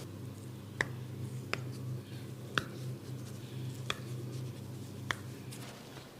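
Five sharp snapping clicks from a barber's hands during a head massage, spaced about a second apart, over a steady low hum.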